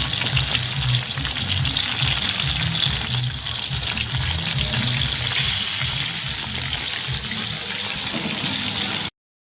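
Birds frying in hot oil: a dense, steady sizzle full of small crackles and pops. The sound cuts off abruptly near the end.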